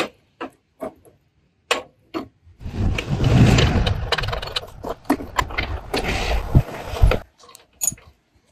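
Metal exhaust parts and tools being handled as a motorcycle muffler clamp is fitted: a few scattered clicks, then about five seconds of dense rattling and clatter with sharp knocks, then a few more clicks near the end.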